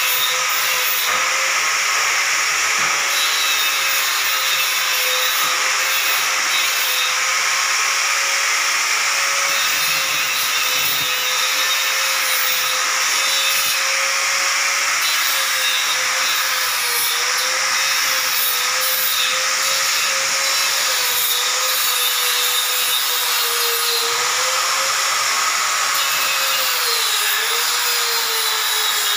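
Handheld electric sander pressed against a plywood ceiling, running without a break: a steady motor whine that wavers slightly in pitch under a hissing scratch of abrasive on wood.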